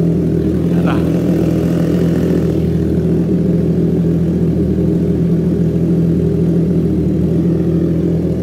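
Triumph Trident 660's three-cylinder engine idling steadily just after a cold start, through a Drift Xaust full exhaust with a resonator and a short perforated tailpipe: a steady, deep rumble.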